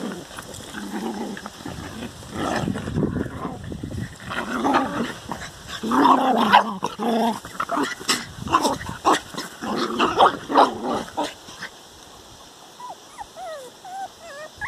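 Dogs growling and snarling in rough play, an adult dog and a puppy wrestling, in a run of gruff bursts that stops about eleven seconds in. Near the end, a few thin, high, wavering whines.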